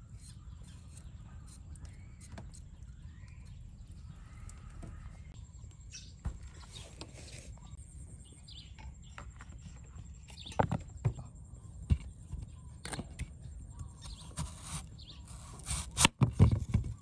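Birds calling faintly in the first half. From about ten seconds in, a knife slicing a peeled mango and knocking against a wooden cutting board, several sharp knocks with the loudest cluster near the end.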